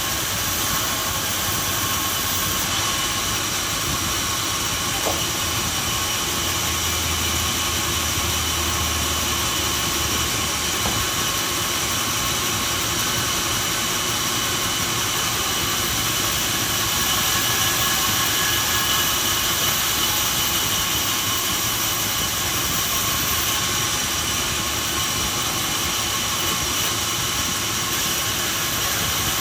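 Sawmill machinery running with a steady, unchanging noise, with a few faint steady high tones.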